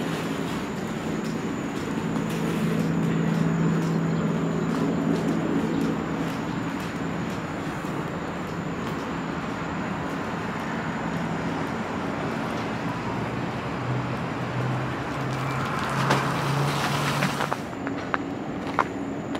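City road traffic: vehicle engines with a steady low hum under a hiss of passing traffic, and a vehicle going by close about sixteen seconds in.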